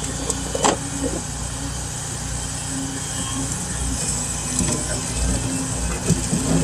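Caterpillar 579D knuckleboom log loader's diesel engine running steadily under hydraulic load as its grapple swings a bundle of logs, with a single sharp knock less than a second in.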